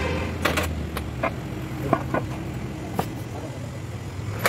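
Sharp metal clinks and knocks as a cast flywheel housing is worked into place against a Hino truck engine block and its bolts are handled, over a steady low hum.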